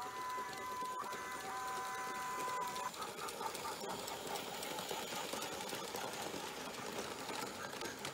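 Mould King Hogwarts Express toy locomotive running on plastic Lego track: its small electric motor and gearing whine for the first three seconds, then the whine stops and a fast, even rattle of wheels and gears clicking over the track goes on.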